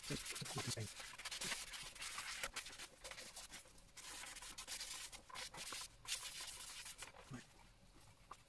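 Rubbing and scrubbing strokes on the surface of a slate clock case, in bouts with a short pause partway through, getting quieter near the end.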